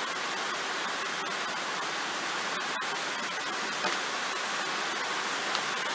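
Rain falling: a steady, even hiss with a few faint ticks.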